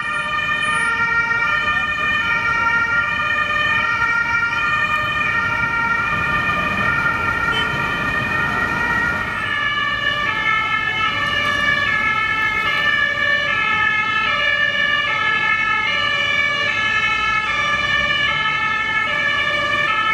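German two-tone emergency-vehicle sirens (Martinshorn) alternating between a high and a low pitch over road traffic. About halfway through, a louder siren on a slightly different pair of pitches takes over.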